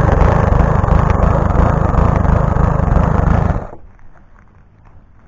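Self-propelled walk-behind lawnmower's small four-stroke engine running loudly, then shutting off suddenly about three and a half seconds in.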